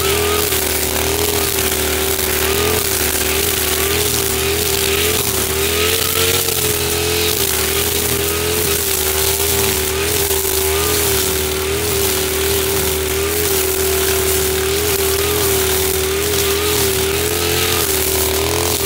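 Husqvarna 542RBS backpack brush cutter's two-stroke engine running steadily, its pitch wavering slightly as the 3.5 mm nylon line cuts through thick grass.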